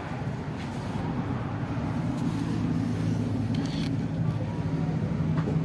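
An engine running steadily with a low hum, growing gradually louder.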